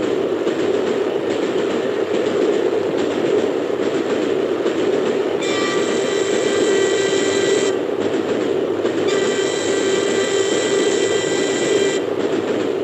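LMS Class 5 steam locomotive running at speed, heard from the footplate as a steady rushing noise. Twice, about five and nine seconds in, a long high whistle sounds, the first for about two seconds and the second for about three.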